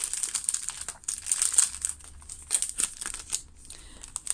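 Clear cellophane packaging crinkling in irregular crackles as a pack of small paper pieces is handled and slid out of its sleeve.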